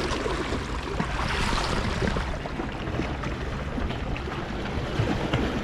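Steady sea ambience at a shore rock: water washing against the rocks, with wind on the microphone.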